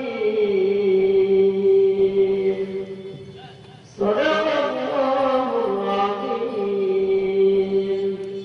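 Quran recitation chanted in a melodic tajweed style, the reciter holding long drawn-out notes. One phrase fades away about three and a half seconds in, and a new phrase begins about four seconds in.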